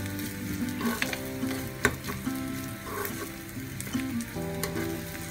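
Grated coconut and chopped green chillies frying and sizzling in coconut oil in a small pan, stirred with a metal spoon that scrapes the pan and clicks against it a few times. This is the tempering being browned for a pachadi.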